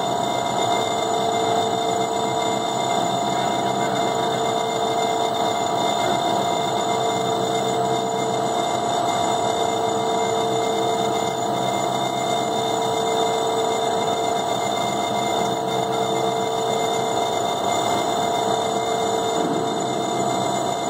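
Tote mixer running at a constant speed while it stirs thick orange juice concentrate: an even mechanical hum with a steady whine that holds one pitch throughout.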